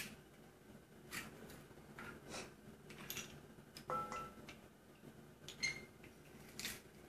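Scattered faint clicks and taps of a metal garlic press being squeezed over a stainless steel bowl, with one brief metallic ring about four seconds in as it knocks the bowl.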